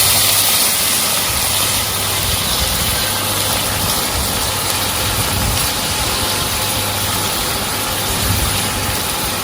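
Fish stock sizzling and simmering in a hot pan of melted butter with sautéed onion and garlic, a steady even hiss with a low hum under it.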